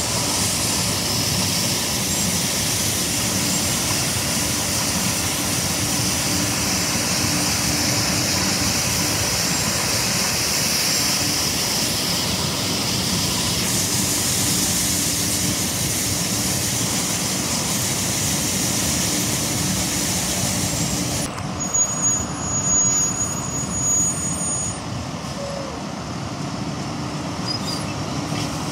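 Schwarze A7 Tornado regenerative-air street sweeper at work: a steady rush of its engine and blower with the gutter broom brushing the pavement, a constant low hum under it. About 21 seconds in the sound turns duller and uneven as the sweeper moves away.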